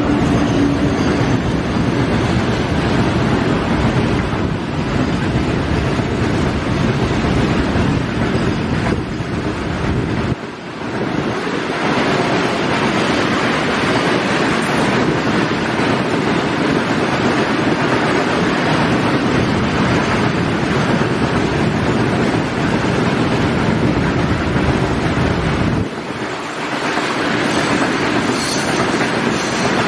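An electric-hauled goods train running past close by: a steady, loud rumble and clatter of locomotives and covered freight wagons on the track, with heavy wind noise on the microphone. The sound drops out briefly twice, about ten seconds in and again near the end, before carrying on.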